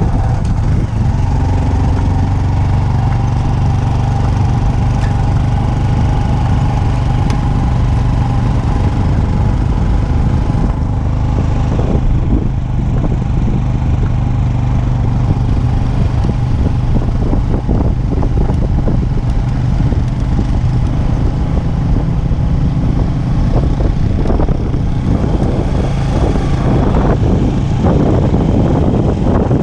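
Motor vehicle engine running steadily under a rough rushing noise, holding an even pitch without revving up or down.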